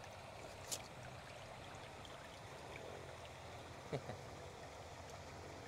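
Faint water trickling and lapping as a large fish is held up out of a lake, water dripping back off it. A single brief sharp click comes about a second in.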